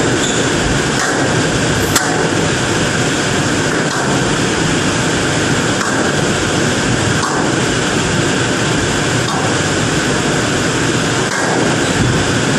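Squash rally: the ball cracks off rackets and the walls every second or two, the sharpest hit about two seconds in, over a steady background hiss.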